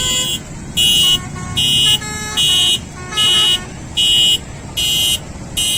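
Lorry's basuri/telolet musical horns playing: a loud high horn note sounds about every 0.8 s, with a tune of shorter, changing horn notes between the blasts.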